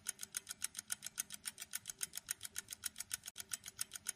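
Quiz countdown timer's ticking-clock sound effect: short, bright, even ticks at about five a second.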